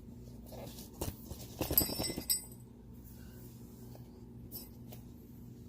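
A few sharp knocks and metallic clinks, several of them ringing briefly, in a burst between about one and two and a half seconds in, over a low steady hum.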